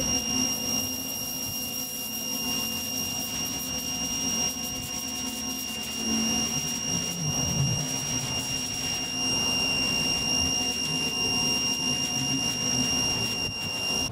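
Ryobi electric pressure washer running, its water jet hissing onto concrete, with a steady high whine and a low hum alongside.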